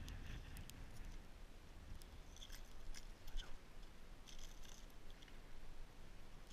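Faint, scattered small clicks and crunches from a hand working an ice-fishing tip-up at a hole in snow-covered ice, over a steady low rumble.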